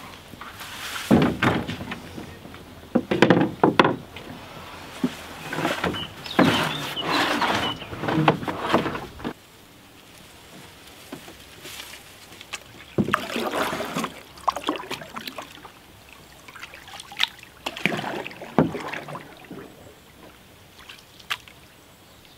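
Gear being loaded into a wooden cedar-strip canoe: irregular knocks, bumps and scraping as a plastic barrel goes into the hull. In the second half, the canoe pushes off and is paddled away, with a few bursts of paddle strokes swishing and splashing in the water.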